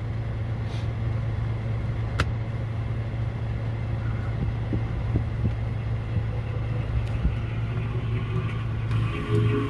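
Car engine idling, heard from inside the cabin as a steady low hum, with a single sharp click about two seconds in. Music starts playing from the car's speakers near the end.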